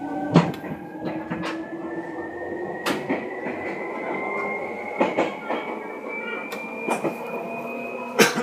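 Seibu 2000 series electric train heard from inside the car while running, its motor whine rising steadily in pitch as the train gathers speed. The wheels click over rail joints at irregular intervals.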